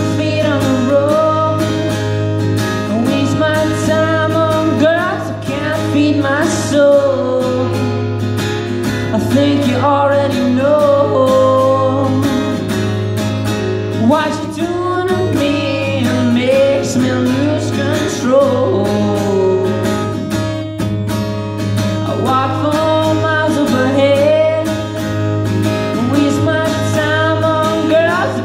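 A man singing a bluesy song live while strumming an acoustic guitar, heard through a PA, with a steady low hum underneath.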